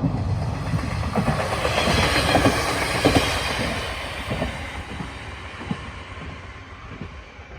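A train passing close by, its wheels clacking over rail joints; loudest about two to three seconds in, then fading as it moves away.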